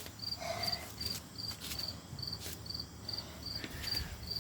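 An insect chirping steadily outdoors: short, high-pitched chirps repeating evenly, about two or three a second.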